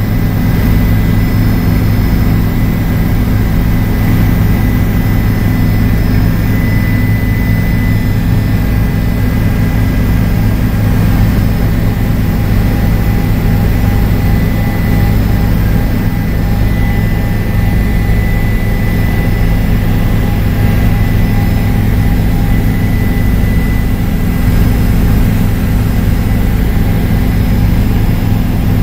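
Bell helicopter's single turbine engine and rotor in steady cruise, heard from inside the cabin: a loud, even low drone with a thin high turbine whine over it.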